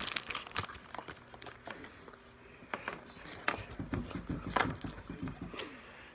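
A child chewing a piece of candy close to the microphone, with many short wet clicks and smacks of the mouth, busiest from about halfway through.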